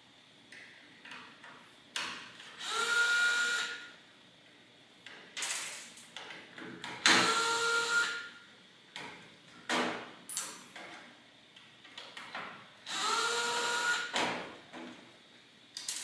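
Electric drill-driver running in three short spells of about a second each, a steady motor whine each time, as screws are backed out of the 8-track player's mechanism. Small clicks and knocks of parts being handled come between the spells.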